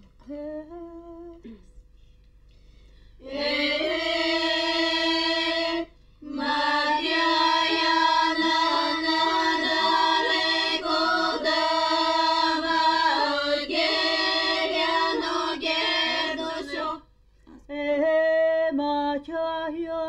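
Unaccompanied Bulgarian folk singing by female voices, in long straight-toned held notes. A soft phrase opens it, full-voiced singing comes in about three seconds in, and it pauses briefly near six and seventeen seconds between phrases.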